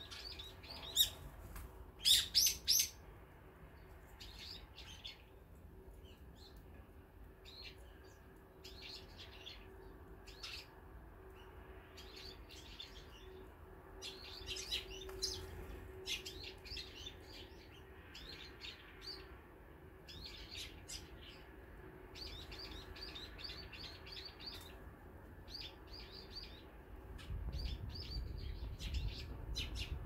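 Small wild birds chirping and calling around a seed feeder, with short chirps in quick clusters throughout and the loudest calls about two seconds in. A low rumble comes up near the end.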